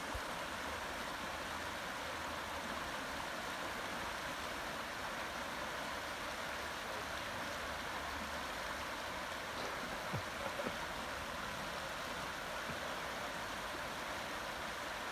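Steady rush of a shallow river running over a rocky bed.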